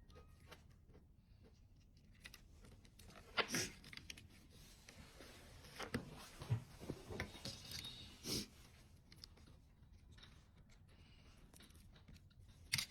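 Scattered clicks, knocks and rustling of objects being handled, in bunches about a quarter of the way in, through the middle, and a sharp knock near the end.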